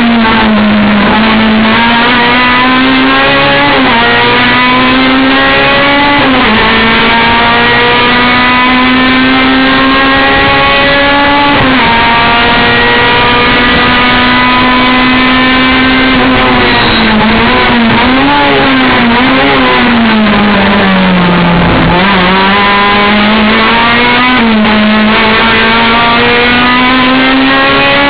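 Honda race car's engine driven flat out, loud and close. Its pitch climbs through the revs and drops sharply at each upshift, three times early on. About two-thirds through it falls under braking with several quick throttle blips on the downshifts, then pulls up through the gears again.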